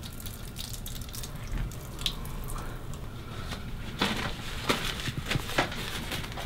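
Water running from a sink faucet and splashing as hands are washed under it. From about four seconds in, a paper towel rustles and crinkles in a handful of sharper strokes as the hands are dried.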